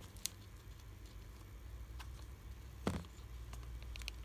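Scattered sharp clicks and ticks from a shrink-wrapped cardboard box being worked open at its edge, the loudest a knock about three seconds in, over a low steady hum.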